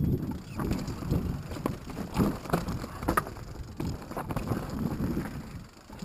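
Mountain bike descending a rocky trail: the bike rattles over loose stones with irregular clatters and knocks, over a low rumble of wind on the microphone.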